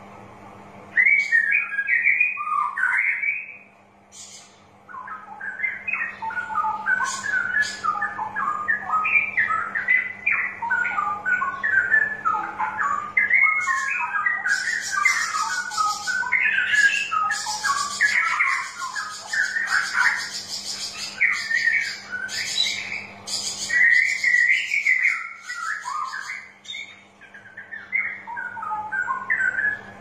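Straw-headed bulbul (cucak rowo) singing: fast, rich warbling phrases that leap up and down in pitch, with a short pause about four seconds in.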